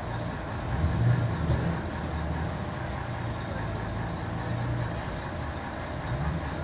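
Vintage American fire truck's engine running at a steady low idle, revved up briefly about a second in and again near the end.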